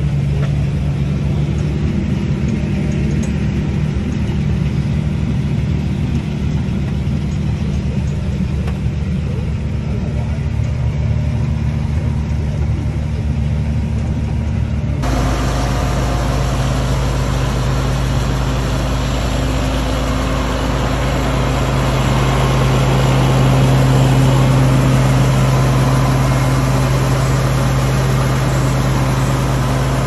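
Diesel engine of a harvest tractor or combine running steadily at a constant speed. About halfway through the sound changes abruptly, with a heavier low hum and more hiss.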